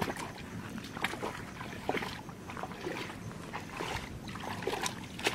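Shallow muddy water sloshing and splashing in small, irregular strokes as hands grope through it for fish and feet wade.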